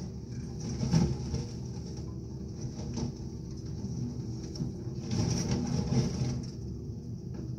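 An excavator's engine running steadily while its bucket knocks and crunches through the wreckage of an old speedboat and demolition debris. There are sharp knocks about a second and three seconds in, and a longer stretch of crunching a little past the middle.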